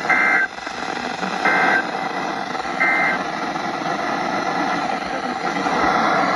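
Three short Emergency Alert System data bursts, each about half a second long and about 1.4 s apart: the end-of-message code that closes a broadcast alert. They sound over a steady hiss of radio static.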